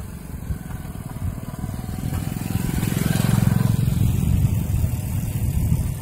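A motorcycle's engine comes toward the listener, growing louder and passing close by about halfway through.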